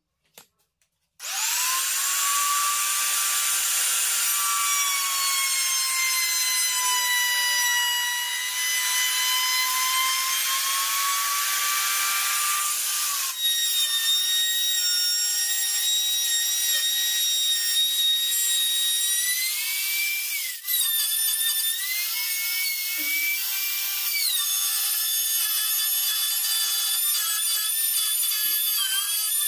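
Makita trim router running at full speed and cutting a slot in plywood, a high motor whine with the rasp of the bit in the wood. It starts about a second in, and its pitch dips and recovers as it cuts, with two abrupt jumps in the sound later on.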